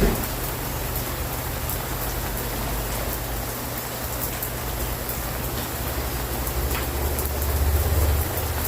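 Steady rain falling, with scattered sharp drop ticks over an even hiss. A low rumble runs under it and swells briefly near the end.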